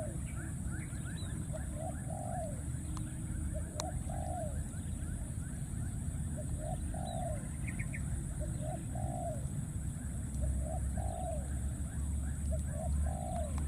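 A bird calling over and over, a short note then a longer rising-and-falling coo, repeated every second or two.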